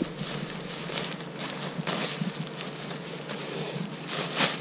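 Nylon tent fabric rustling and swishing as the folded tent is stuffed into its carry bag, with louder swishes about two seconds in and near the end.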